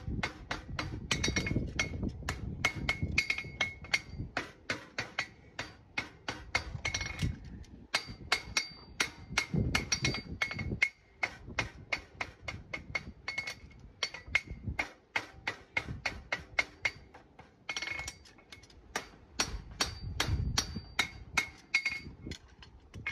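Farrier's hammer striking a hot steel horseshoe held in tongs on an anvil, shaping the shoe. The blows come about two to three a second, each with a bright metallic ring, broken by a few short pauses.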